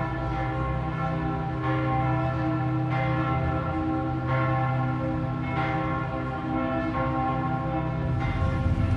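Church bells ringing a steady peal: new strikes come about every second and a half, layered over the long, overlapping hum of the bells still sounding.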